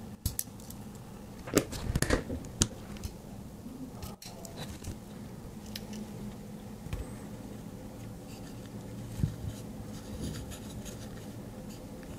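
Small metal clicks and scrapes of a Victorinox Swiss Army Knife being handled, its tools and small magnets moved about: a cluster of sharp clicks about two seconds in and a few lighter ticks later, over a faint steady hum.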